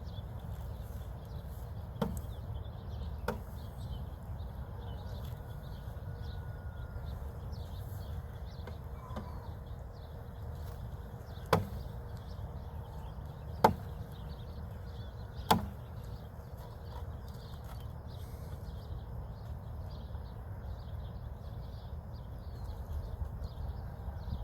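About five sharp wooden knocks from beehive parts being handled, the three loudest coming close together in the middle, over a steady low rumble and faint high chirping.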